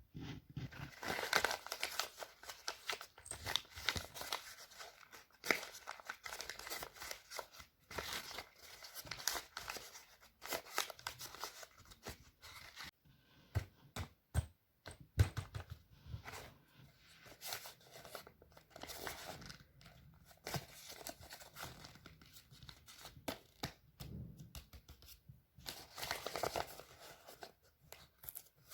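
Blind-bag packaging being torn open and crinkled by hand, in irregular bursts of tearing and rustling with a few sharp clicks.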